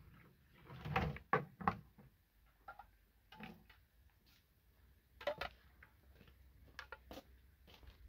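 A scatter of light knocks and clunks, a plastic water jerrycan and bowl being handled, with a cluster about a second in and another near the middle.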